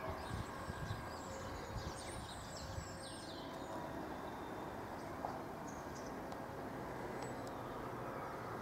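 Small birds chirping, mostly around two to three seconds in, over a steady low outdoor rumble.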